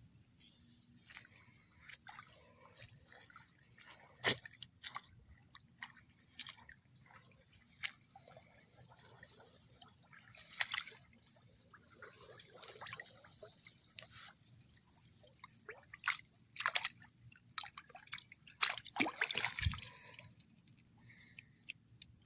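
Splashing and dripping of shallow rice-paddy water as a hooked snakehead fish on a set line is pulled at and struggles, in irregular bursts that come thickest near the end. A steady insect chirring runs underneath.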